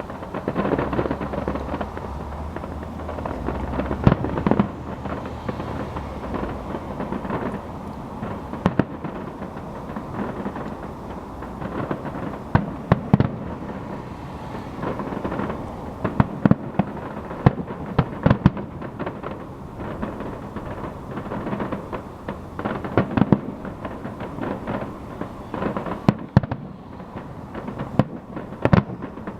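Fireworks display: aerial shells bursting one after another over a steady rumble, with many sharp bangs and crackles, thickest in clusters near the middle and toward the end.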